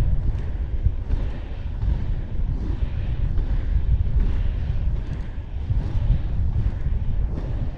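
Strong wind buffeting an action camera's microphone during inline skating, a heavy, uneven rumble. Fainter swishes of skate strides recur at an even pace, under a second apart.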